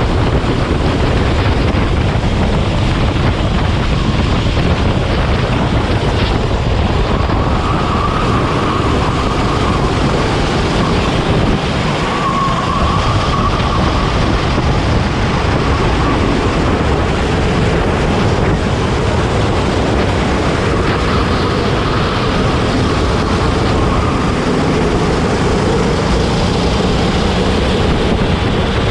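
Racing kart at speed: heavy wind buffeting on the microphone over the kart's engine, whose pitch rises and falls now and then.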